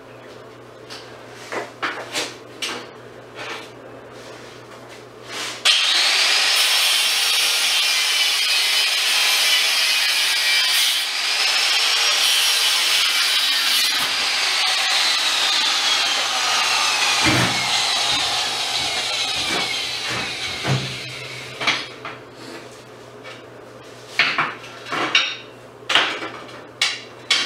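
Power tool with a high motor whine, most likely an angle grinder, grinding on steel for about fifteen seconds. It starts suddenly and tapers off, and its pitch sags and recovers as it is pressed into the work. Scattered metal knocks and clanks come before it and after it.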